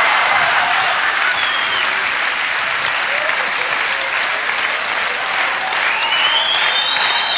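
A large theatre audience applauding steadily. From about six seconds in, shrill whistles rise above the clapping.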